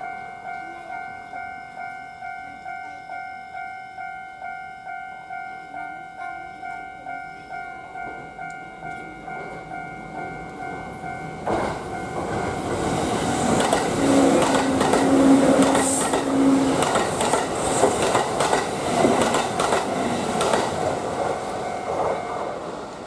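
Japanese railroad crossing alarm ringing its repeated bell tone, about two strokes a second. About eleven seconds in, a Kintetsu electric train passes through the crossing, its wheels clattering over the rail joints, and a low steady tone sounds for a few seconds partway through the pass.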